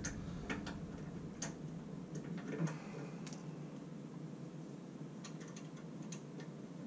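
Faint, scattered clicks and taps of small metal parts being handled as Carter roller guides are slid into a bandsaw's lower guide bracket, with a small cluster of clicks near the end, over a steady low hum.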